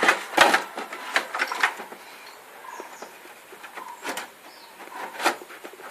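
Sharp clicks and knocks of computer hardware being handled as a power supply is fitted: several in quick succession over the first two seconds, then a couple more spaced out. Faint bird chirps in the background.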